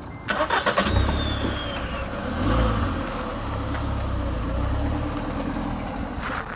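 A motor vehicle, most like a car, driving past with a low engine rumble, with several falling whines in the first couple of seconds and the loudest point about two and a half seconds in.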